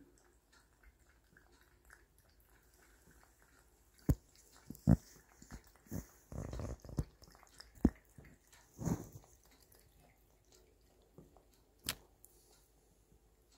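A tabby cat drinking water from a plastic bowl: quiet lapping at first, then a run of irregular sharp knocks and short splashes from about four seconds in, and one more sharp splash near the end as it paws at the water.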